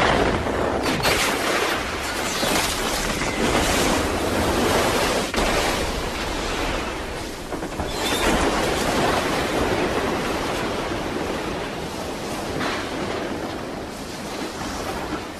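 Film sound of a bursting dam: a loud torrent of floodwater rushing out, broken by a few heavy booms. It fades gradually towards the end.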